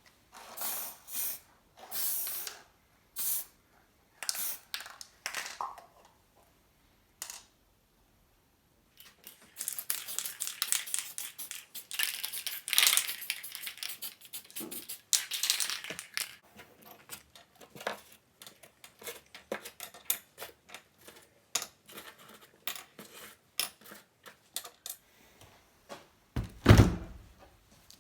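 Hand work on metal vise parts: scattered short metallic clinks and rattles, a denser stretch of scraping in the middle, and one heavy thud near the end.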